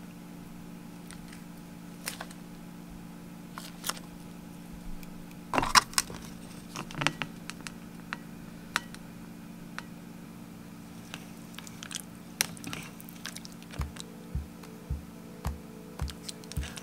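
Handling of a plastic soup cup over a steady low hum. There are scattered clicks and crackles of the plastic cup and lid, loudest about five and a half seconds in. Near the end, a plastic spoon knocks softly in the cup about twice a second as the soup is stirred and scooped.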